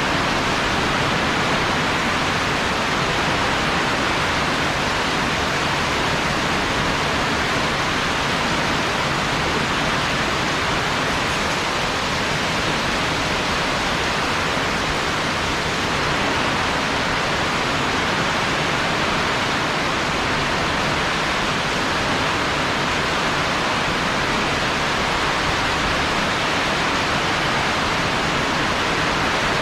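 Heavy rain pouring down in a rainstorm: a steady, even hiss that stays unchanged throughout.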